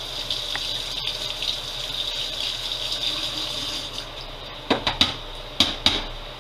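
Kitchen tap running steadily for about four seconds, then a quick run of five sharp clacks, like a utensil knocking on dishes, which are the loudest sounds here.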